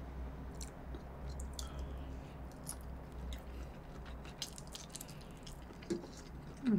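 Close-miked chewing of raw shrimp sushi: quiet, soft mouth sounds with many small wet clicks over a steady low hum.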